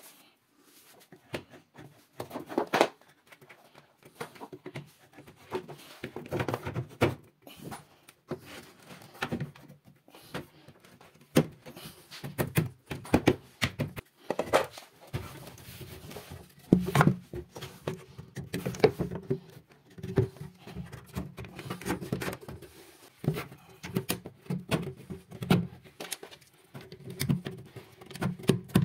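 Irregular knocks, taps and light scraping of chipboard wardrobe parts being handled and fitted, with a few sharper clicks among them.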